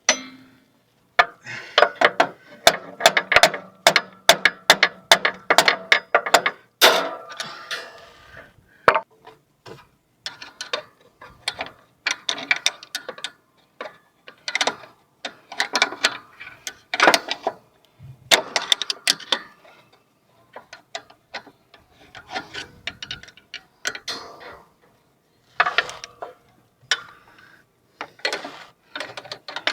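Hand socket ratchet clicking in quick repeated bursts, with short pauses between strokes, as nuts and bolts are worked loose on a lawn tractor.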